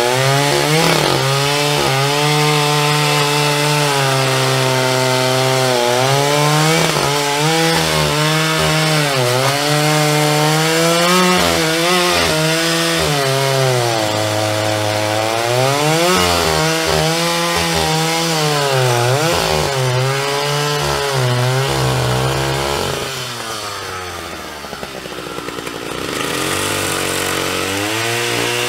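Husqvarna quad's engine running under way, its buzzing pitch rising and falling as the rider accelerates and eases off. About 23 seconds in it drops lower and quieter on a closed throttle, then picks up again near the end.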